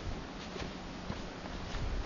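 A hiker's footsteps, a few soft irregular steps over a low steady rumble.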